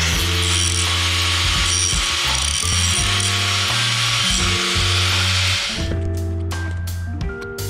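Angle grinder with a cut-off disc cutting metal, a steady loud hiss over background music; the grinding stops about six seconds in and the music carries on.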